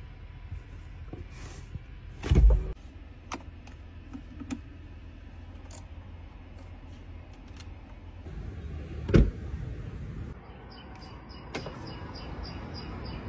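Sounds of a car being handled: a steady low rumble with scattered clicks and two loud thumps, about two and a half seconds in and about nine seconds in. For the last few seconds a high-pitched beep repeats at about three a second, like a vehicle warning chime.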